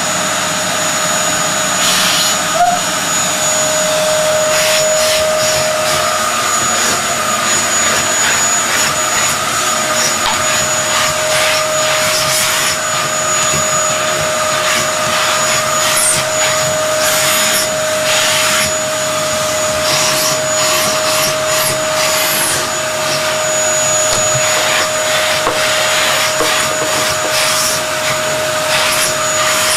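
Vacuum cleaner running steadily with a constant whine, its brush nozzle being drawn over a cat's fur; the rush of air swells and fades as the nozzle moves.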